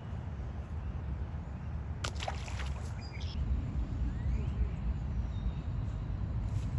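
Steady low rumble like wind on the microphone, with a short burst of rattling clicks from handling about two seconds in.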